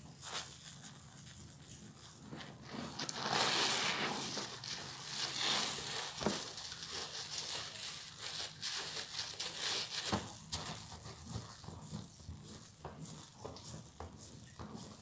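Suds-filled sponges squeezed by hand: a wet, crackling squish of foam and soapy water. It gets louder and hissier a few seconds in.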